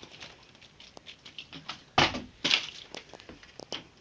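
A sharp knock about two seconds in, followed by a few lighter knocks and clatters, as of a hard object handled or falling in a small room.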